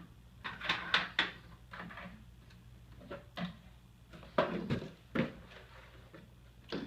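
Cardboard boxes being handled: a series of short knocks and rustles, clustered about a second in and again a little past four seconds in.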